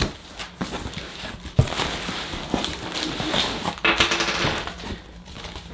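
Cardboard box flaps and paper packaging rustling and crinkling as they are handled, with scattered light clicks and one sharp knock about one and a half seconds in.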